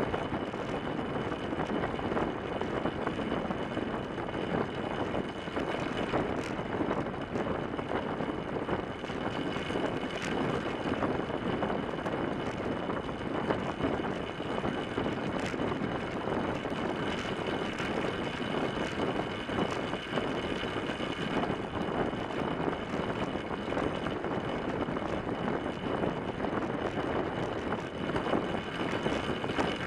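Steady rushing noise of a track bicycle riding at speed on a wooden velodrome track, picked up by a camera mounted on the bike's frame: tyres rolling on the boards and the drivetrain, with a thin steady high whine over it.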